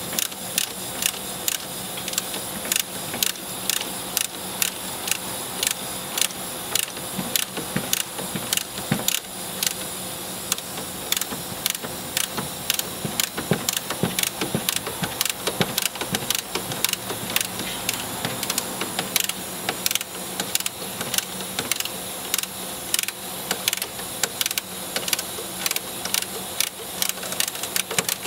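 A 19 mm ratcheting wrench clicking in repeated runs of about two to three clicks a second as it is swung back and forth to tighten a nut. A steady low hum runs underneath.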